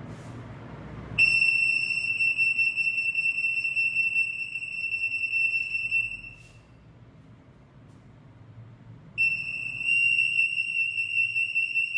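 RF anti-theft (EAS) mono antenna's alarm buzzer sounding a steady, high-pitched tone for about five seconds. It stops, then sounds again about three seconds later. This is the gate's alarm for an RF security tag detected near the antenna.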